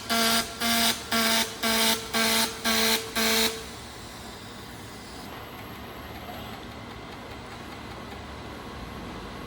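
A harsh buzzer tone pulsing about twice a second, stopping about three and a half seconds in, then a steady machine hum and hiss.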